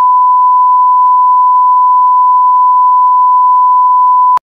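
A loud, steady electronic beep: one unbroken pure tone held at a single pitch, cutting off suddenly near the end.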